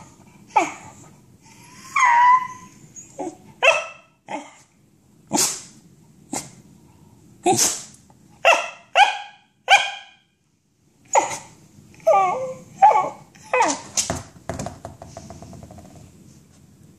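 A corgi barking in single short, sharp barks, roughly one a second with brief pauses, and a drawn-out whining yelp about two seconds in. The barks are aimed at a ball he can't reach.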